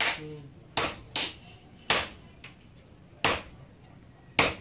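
Sledgehammer striking red-hot leaf-spring steel on an anvil during hand forging: six sharp metallic blows at uneven intervals, each with a short ring.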